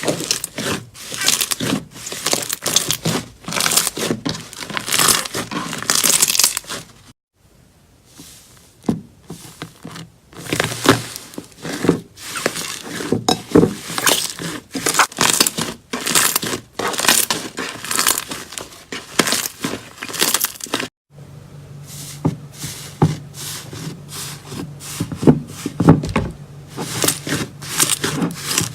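Slime being squeezed, stretched and poked by hand: a dense run of sticky clicks and crackling pops. It breaks off twice, briefly.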